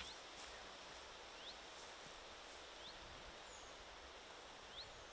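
Near silence with a faint small bird calling: a short rising chirp four times, about every second and a half.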